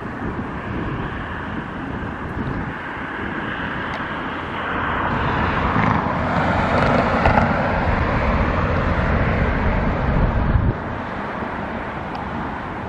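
Outdoor vehicle traffic noise, a steady rumble that swells from about five seconds in and drops away suddenly near the end.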